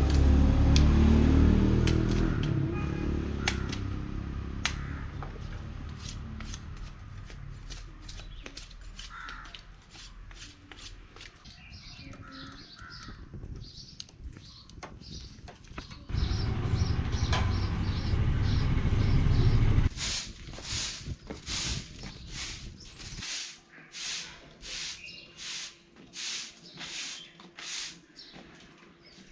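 Crow cawing repeatedly, about one harsh caw a second, through the last third. Before that come two spells of loud low rumble, and scattered faint clicks in the first few seconds.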